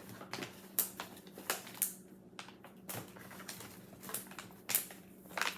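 Mylar food-storage bags being handled: an irregular run of sharp crinkles and clicks, over a faint steady low hum.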